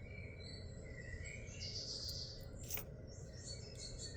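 Faint bird chirps in the background over a low steady hum, with one sharp click a little under three seconds in.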